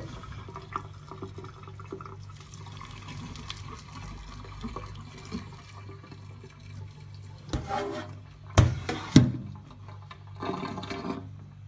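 Water running and splashing into a stainless-steel kitchen sink as boiled water is drained off a saucepan of pigtail and the tap runs, over a steady low hum. A few sharp clanks of the steel pot against the sink come late on, the two loudest close together.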